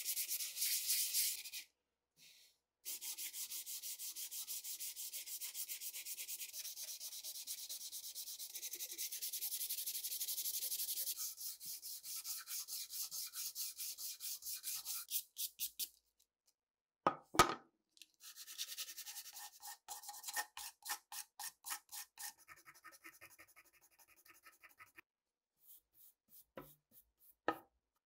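Hand-sanding a wooden rifle stock with sandpaper on a small wooden block: quick back-and-forth rubbing strokes in runs that stop and start again several times. A sharp knock a little past halfway is the loudest sound, with another just before the end.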